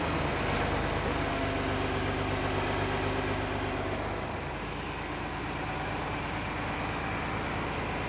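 An engine running steadily at idle, a low even hum.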